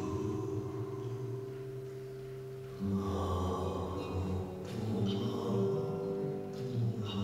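Slow accompanying music of held low tones, with new notes coming in about three seconds in.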